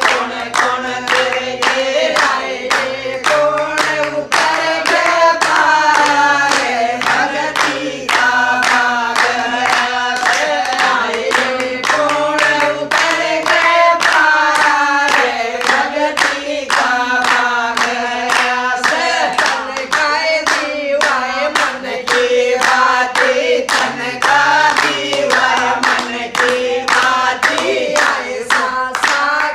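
A group of women singing a Hindi devotional bhajan in unison, clapping their hands on a steady beat.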